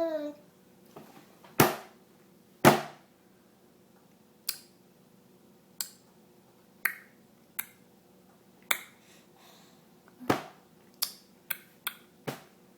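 Tongue clicks: about a dozen sharp, single clicks at irregular intervals, the two near the start the loudest, with a quicker run of clicks near the end.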